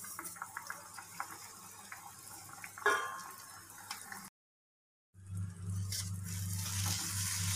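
Semolina tipped from a steel cup into a pan of simmering jackfruit pulp, with soft bubbling and small clicks and a brief squeak about three seconds in. After a short cut, a wooden spatula stirs the thickening mixture over a steady low hum.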